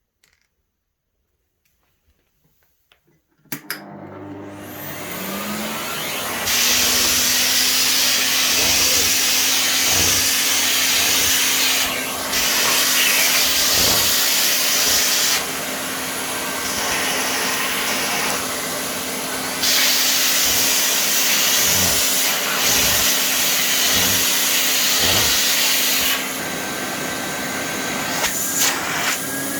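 Rowenta RS 320 electronic canister vacuum cleaner, with its Siemens motor, switched on with a click about three and a half seconds in. Its motor rises to full speed over a few seconds and then runs with a steady hum and a loud rush of air. The hiss of the airflow drops and comes back several times.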